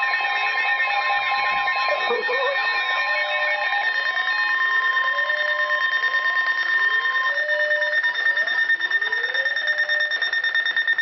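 Several emergency alert receivers sounding a Severe Thunderstorm Warning alarm at once. Steady tones sound together, the one near 1 kHz stopping a little past halfway, with a fast beeping in the first half and a rising whoop repeating about every second and a half.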